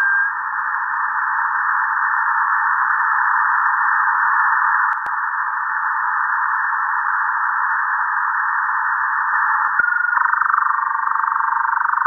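Shortwave radio static from a WebSDR receiver in lower sideband: a steady, narrow-band hiss. Two sharp clicks come about five and ten seconds in. After the second click a warbling run of rapid stepped tones starts up inside the hiss, typical of a digital data signal on the band.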